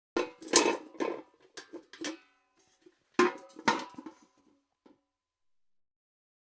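Steel bucket clanking: a quick run of metal knocks and rattles with short ringing, then a second cluster of clanks about three seconds in, ending with a faint tap about five seconds in.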